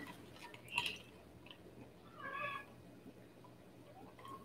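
A short, faint, high-pitched animal call, about two seconds in.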